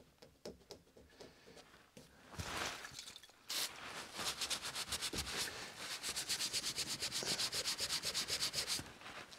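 A paper towel rubbed briskly back and forth over the metal housing of a reel mower's groomer gearbox, wiping off glue residue loosened with WD-40. It starts with light handling and a short burst of noise, then settles into quick, even strokes, about six a second, over the second half.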